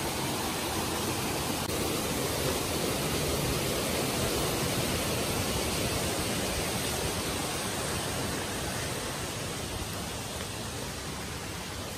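Steady rushing of a stream running over rocks, with no distinct events, fading gradually toward the end.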